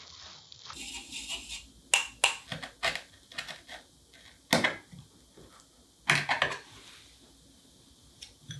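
Flour pattering through a metal mesh sieve for a moment. Then a paring knife clicks and scrapes against a cutting board in an uneven series of sharp taps as a vanilla bean is split open and its seeds scraped out.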